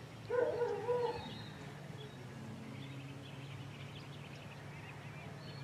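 Puppy giving a short wavering whine about half a second in, over a steady low hum and faint high chirps.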